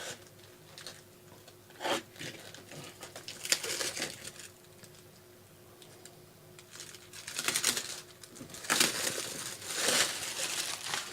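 Packaging crinkling and tearing in several short bouts as a Funko Pop box is opened by hand, the longest stretch of handling near the end.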